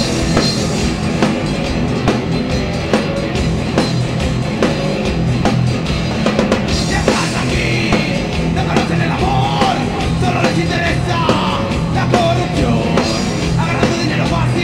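A heavy rock band playing live at full volume: a drum kit keeps a steady beat under a dense band sound, with a melodic line, a voice or lead guitar, rising and falling over it in the second half.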